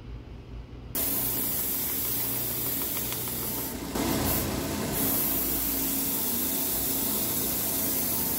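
Belt grinder running with a steel knife blade pressed to the abrasive belt to sharpen its edge: a steady hiss of belt on steel that starts suddenly about a second in and grows louder around four seconds in.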